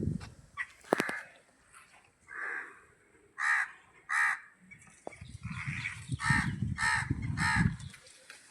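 A crow cawing: a run of about seven short caws, most of them about half a second apart in the second half. A low rumble sits beneath the later calls.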